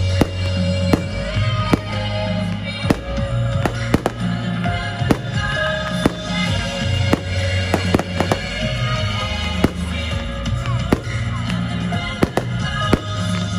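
Aerial firework shells bursting in a rapid, irregular string of sharp bangs, about one or two a second, over music with long held notes.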